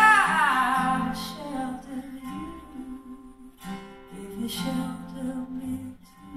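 Live acoustic guitar and bass playing the closing bars of a slow song, with slow strummed chords ringing out about a second in and again near the end. A held sung note bends down and fades in the first second.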